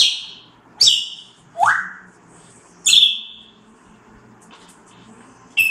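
Parrot giving five short, sharp calls, each a sudden noisy burst, most with a brief high whistle trailing after it and one rising in pitch. A quiet gap of about two seconds comes before the last call near the end.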